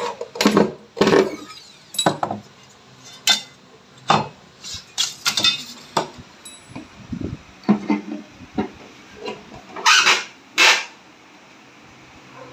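Irregular knocks and clatter of tools and hard building materials being handled during installation work, with a cluster of clinks midway and two louder knocks near the end.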